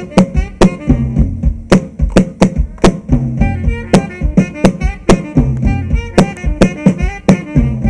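Live band music: a drum kit keeps a steady beat under a bass line and pitched melody instruments.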